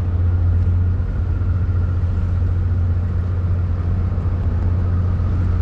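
Engine running with a steady low drone and a faint steady higher tone above it, unchanging throughout.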